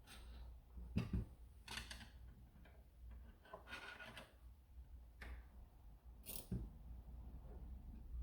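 Plastic blaster kit parts being handled and fitted by hand: a few scattered soft clicks, taps and rustles, several seconds apart.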